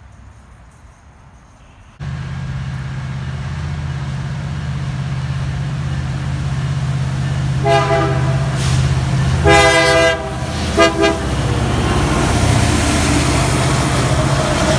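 Union Pacific SD70ACe diesel locomotive leading a freight train: its engine drones steadily as it approaches, and its horn sounds about halfway through in several blasts, the longest one third. The train grows louder as it comes alongside near the end.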